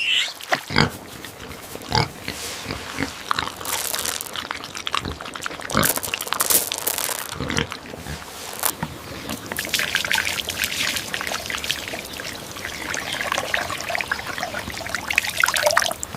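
Pigs grunting and squealing in many short, irregular calls.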